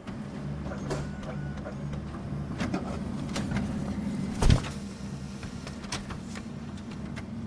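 Office printer running and feeding paper through: a steady low mechanical hum that starts up at once, with scattered clicks and one loud thump about halfway through.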